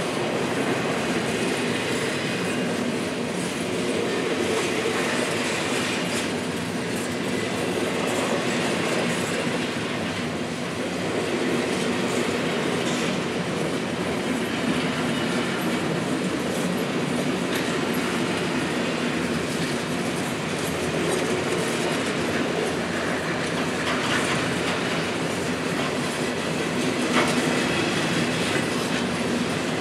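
Empty intermodal well cars of a freight train rolling past steadily, their wheels on the rails making a continuous rolling noise with occasional clicks.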